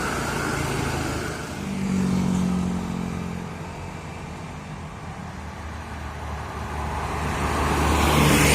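Road traffic: a vehicle engine passes with a steady low note about two seconds in, and another vehicle draws closer, growing louder toward the end.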